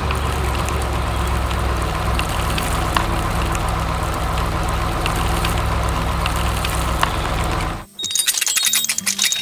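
A heavy construction vehicle's engine running steadily with a low rumble, a few light clinks over it. It cuts off suddenly about eight seconds in, and music with a repeating high beep follows.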